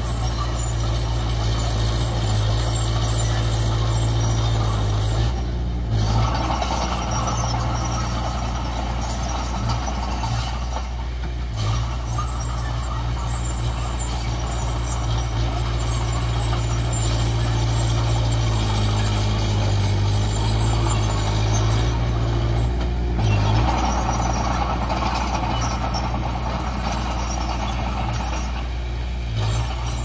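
Komatsu D20P bulldozer's diesel engine running steadily, with a heavier, rougher noise rising over it from about six to ten seconds in and again from about twenty-three to twenty-eight seconds.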